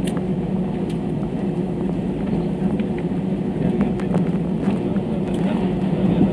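Airbus A320-214's CFM56 jet engines at taxi power heard from inside the cabin: a steady low drone with a couple of held tones, with occasional faint clicks and rattles over it as the aircraft rolls along the taxiway.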